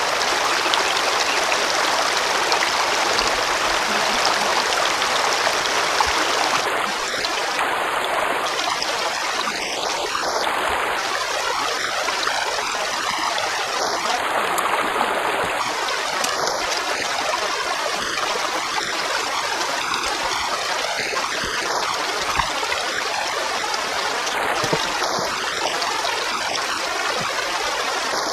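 Shallow river water running steadily over stones close by: a constant rushing hiss.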